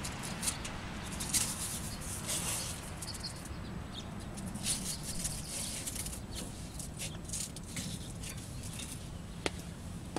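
Velcro straps being pulled, wrapped around a bicycle wheel and pressed shut: irregular scratchy rasps and rustles, with a sharp click near the end, over a steady low background hum.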